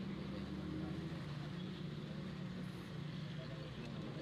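Engine of the vehicle being ridden in, running with a steady low hum as it moves slowly, heard from on board, with road noise.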